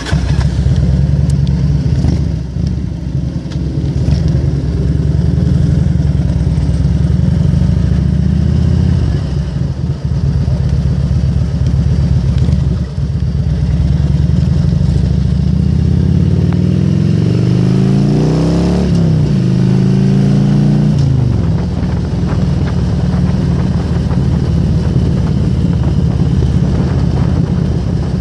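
Harley-Davidson Road King's V-twin engine running under way, a steady low rumble. About two-thirds of the way in it accelerates: the pitch climbs, drops sharply at a gear change, climbs again and settles.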